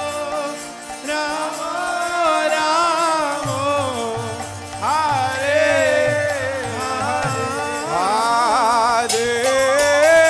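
Kirtan music: a voice sings long, ornamented notes with a wavering vibrato over a steady drum beat. Sharp strikes join in near the end.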